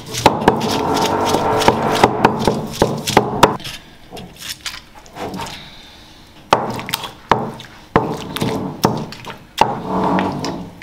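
Stone pestle knocking and grinding on a flat stone slab (a Nepali silauto and lohoro), crushing cilantro and tomatoes into a chutney: sharp stone-on-stone knocks, several a second, easing off to fewer, quieter strokes in the middle before picking up again.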